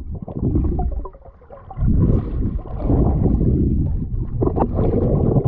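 Wind buffeting the microphone: a loud, gusty low rumble that drops away briefly a little over a second in, then comes back.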